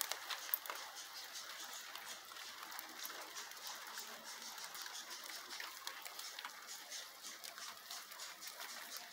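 Light rain pattering, an even hiss with many small scattered ticks of drops, and a faint steady high tone.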